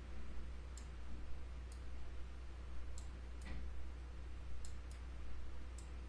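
A few sharp, scattered computer mouse clicks, about seven of them, made while drawing a line on an on-screen chart, over a steady low electrical hum.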